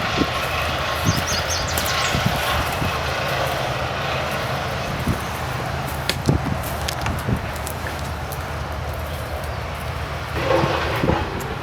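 A steady, low engine rumble with scattered clicks and knocks.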